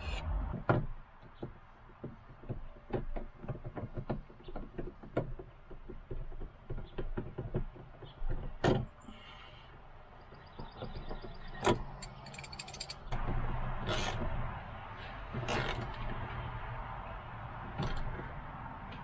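Hand work on a truck door panel: scattered small clicks and knocks of screws and plastic trim going back in, with a few sharper snaps and knocks. A steady low hum comes in about two-thirds through.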